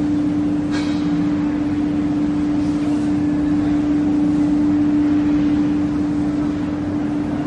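Plywood-mill machinery running steadily: a constant electric hum with one strong steady tone over a dense mechanical noise, and a single short clack about a second in.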